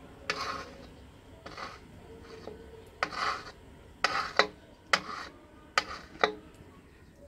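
A ceramic mug scraping against the side and rim of a steel bowl as it scoops up thin batter: a series of about eight short scrapes.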